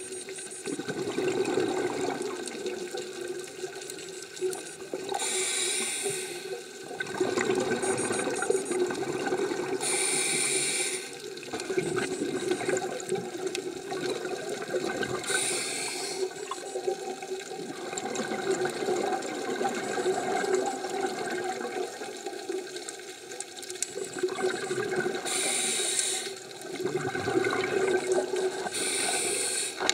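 Scuba diver breathing through a regulator underwater: a short hiss with each inhale, about five in all at uneven intervals, between long gurgling streams of exhaled bubbles.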